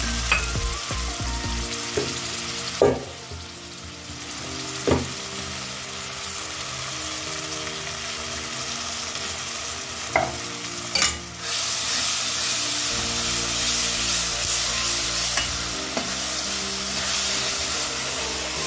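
Capsicum and onion sizzling in oil in a steel kadhai while a steel spoon stirs sauce into them, with a few sharp clicks of the spoon knocking the pan. The sizzle grows stronger from about two-thirds of the way in.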